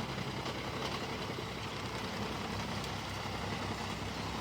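Tractor-driven Heizohack HM 10-500K drum wood chipper running steadily, with a low, even engine hum and no distinct chipping knocks.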